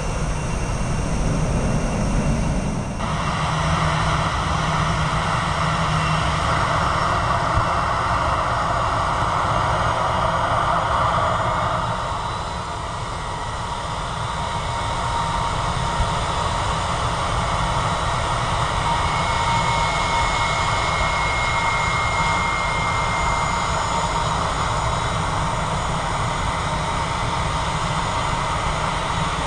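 For the first three seconds, the low rumble of a jet airliner climbing away. It then changes abruptly to the close, steady whine of an Airbus A320-family airliner's twin jet engines running at low power as it rolls slowly on the runway, dipping slightly in level about twelve seconds in.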